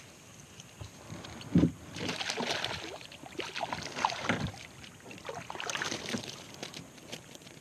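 Irregular water splashing and sloshing mixed with knocks, with a sharp thump about a second and a half in.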